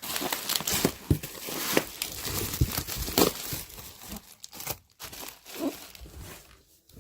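Packing material being pulled out and crumpled while unpacking a boxed computer: irregular crinkling and tearing, busiest in the first few seconds and thinning out near the end.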